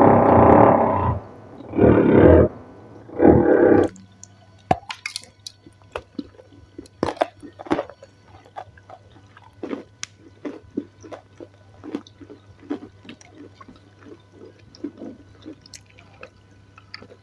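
Salad eaten close to the microphone: three loud crunching bites in the first four seconds, then quieter wet chewing with many small mouth clicks and squelches.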